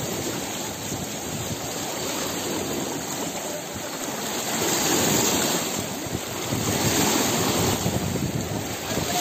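Fast floodwater rushing and churning around wading bodies: a steady wash of water noise that swells louder twice partway through, with wind on the microphone.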